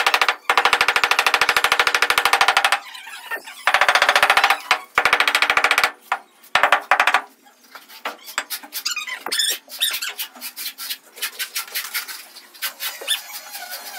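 A wooden pole being rapidly rammed on a granite floor slab, about ten strikes a second in runs of a second or two, tamping the slab down into its mortar bed. From about seven seconds in there are only scattered separate taps and knocks.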